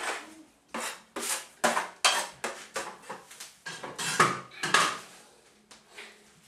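Caulker blade scraping across a plaster ceiling in a quick run of short strokes, several a second, spreading joint compound over a crack; the strokes fade out after about five seconds.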